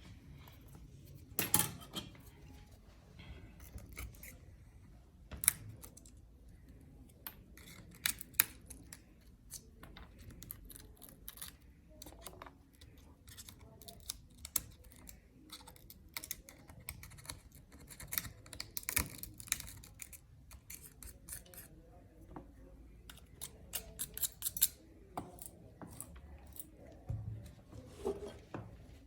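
Irregular small clicks and scrapes of a hand tool working on a phone's cracked back glass, sometimes several a second, with a few sharper clicks standing out.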